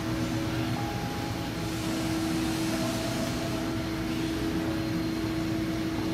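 Steady hum of aquarium pumps and filtration along a store's rows of fish tanks: a constant low tone under an even hiss.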